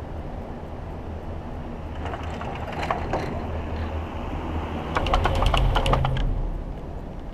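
Gondola cabin passing over a cable-car pylon, its grip and hanger running across the tower's roller sheaves: a short run of rapid clicks about two seconds in, then a louder, denser clatter about five seconds in. Under it is the steady low rumble of the moving cabin.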